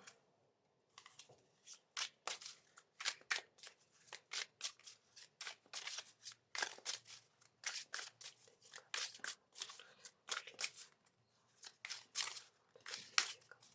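A deck of tarot cards being shuffled by hand: a quick, irregular string of short card clicks and rustles.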